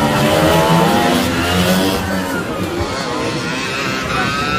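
Classic Vespa scooters' two-stroke engines racing on a dirt track, revving up and down with a wavering pitch that climbs again near the end.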